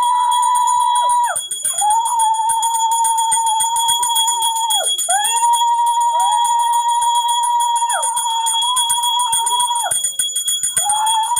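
Conch shells blown in long blasts of about three seconds each, every blast sliding up in pitch at the start and falling away at the end, one after another with short gaps and at one point two at once. Under them a hand bell is rung rapidly and steadily. Together they are the sounds of an aarti, the offering of the lamp to the deity.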